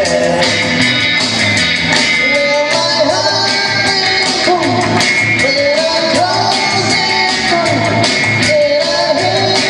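A rock and roll song: a voice singing the melody over a steady, evenly repeating beat with backing instruments.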